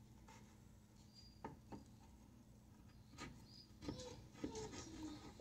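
Near silence broken by a few faint clicks and light taps, coming more often in the last couple of seconds, as a knife is handled at a metal muffin tin.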